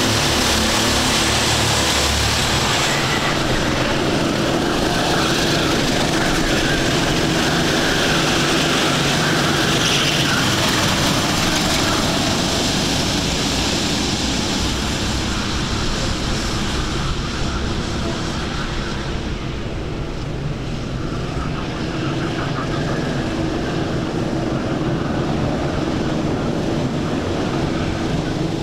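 Engines of a pack of Sodi four-stroke rental karts running as the karts race past, several engines heard at once. The sound is brightest and loudest in the first half and turns duller and a little quieter from about sixteen seconds in.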